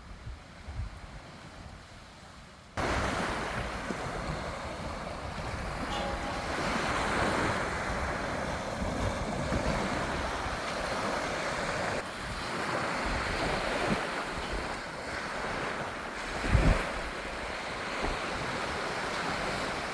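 Small waves washing onto a sandy beach, a steady surf hiss, with wind buffeting the microphone. For the first few seconds only a low wind rumble is heard, then the surf starts abruptly and runs on, with a strong wind gust near the end.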